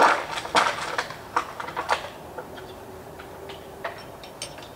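A run of irregular sharp clicks and knocks, several loud ones in the first two seconds, then fainter, sparser taps.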